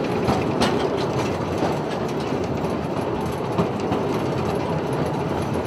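Narrow-gauge forest railway train running, heard from an open passenger car: a steady rumble of wheels on rail with irregular clicks and clanks from the track and the car.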